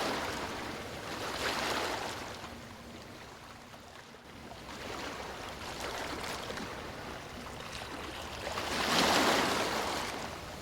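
Ocean surf washing onto a beach: a wave surges in about a second and a half in, the wash ebbs away, and a larger wave breaks near the end before fading.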